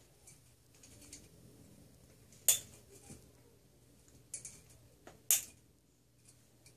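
Scissors snipping off the excess tails of plastic cable ties: two sharp snips about three seconds apart, with a couple of fainter clicks between them amid light handling of the plastic grid and screen.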